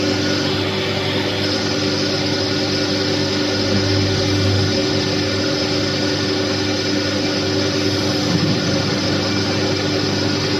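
Industrial machinery running steadily: a constant motor hum with a few fixed tones under an even hiss, unchanging throughout.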